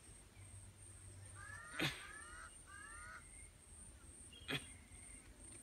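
A bird calls in two quick series of short rising notes, with two sharp clicks, one about two seconds in and one about four and a half seconds in, over a faint steady high whine.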